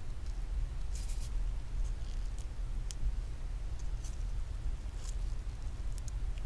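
Faint, scattered small clicks and rustles of nitrile-gloved fingers handling the iPhone home button and its thin flex cable, over a steady low hum.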